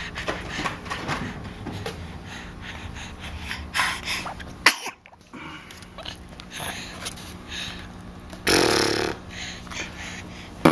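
A baby making spluttering, burp-like noises with the mouth: a few short noisy bursts, the loudest and longest near the end, lasting under a second.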